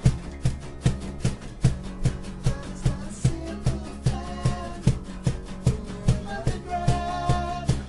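Small band playing a song live on bass and acoustic guitars over a steady, even beat, with held melody notes entering about halfway through.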